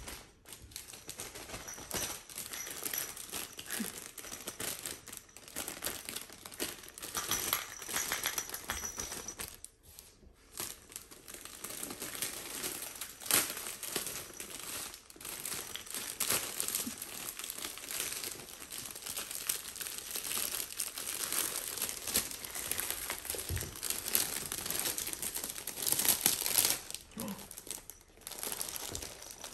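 Gift packaging crinkling and rustling as it is handled and unwrapped, in irregular crackles with short pauses about ten seconds in and just before the end.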